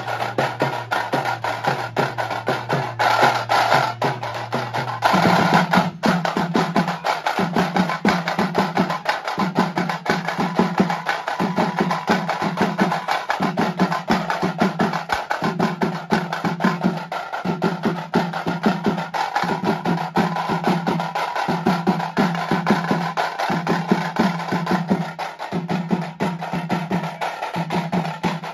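A troupe of drummers beating small hand-held round drums with sticks in a fast, dense, continuous rhythm. Underneath runs a steady low note that breaks off briefly about every two seconds.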